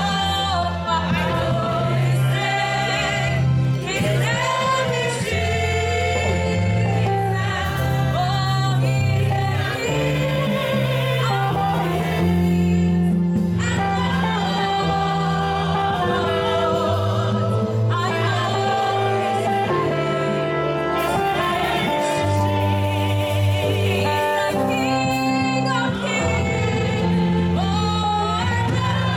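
Gospel singing by a choir, with instrumental accompaniment playing held bass notes that change every second or two.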